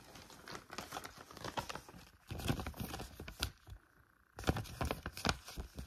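Paper ultrasound scan printout being handled and turned, with irregular rustling, crinkling and light clicks, and a brief pause about four seconds in.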